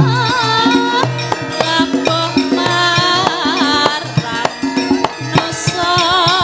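Javanese gamelan music with a sinden's voice holding long wavering notes over frequent kendang hand-drum strokes.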